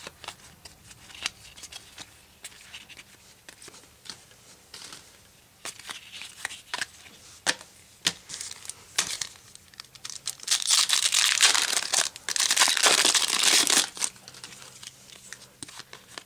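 Trading cards being handled and flipped, with scattered light clicks and rustles. About ten seconds in come several seconds of loud crinkling and tearing as a foil card-pack wrapper is ripped open.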